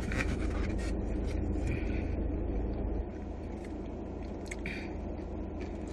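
Low steady rumble inside a car, easing slightly about three seconds in, with a few faint scrapes and taps of a plastic fork picking at takeout food.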